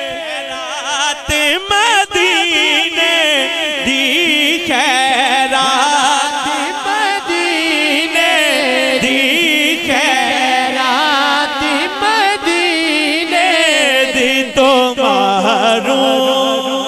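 A man's solo voice singing a naat into a handheld microphone, drawn-out ornamented melodic runs with no clear words.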